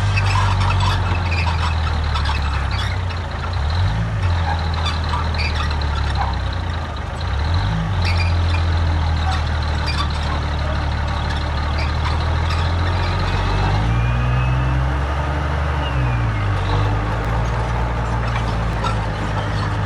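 Heavy diesel engine of earthmoving machinery running under load, its speed dipping and picking up again a few times, with scattered clanks.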